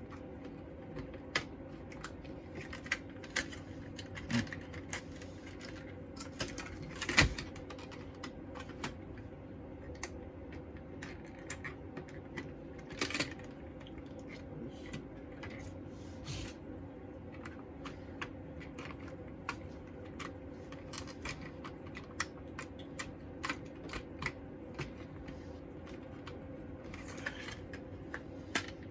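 Scattered clicks, taps and small knocks of hands handling the PS4's parts and tools, with one louder knock about seven seconds in, over a steady low electrical hum.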